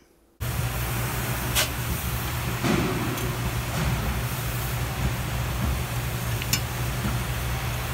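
Steady low hum and hiss of running machinery in a car repair shop, with a few light clicks and a soft knock.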